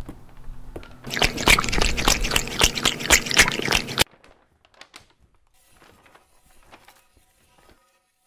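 Water splashing: a loud, noisy, crackling stretch of about three seconds that cuts off abruptly, followed by a few faint scattered clicks.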